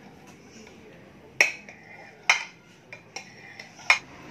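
A kitchen knife slicing set coffee jelly (gulaman) in a glass baking dish, the blade clinking sharply against the glass three times, with a fainter knock between.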